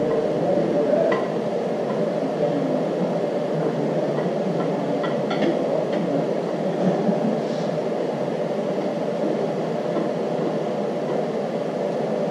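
Steady background noise with a few faint, light metal clicks as a camshaft is twisted slowly into the engine block through its cam bearings.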